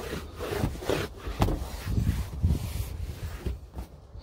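A cloth towel rubbed in repeated wiping strokes over pleated car-seat upholstery, wiping off the grime loosened by steam cleaning.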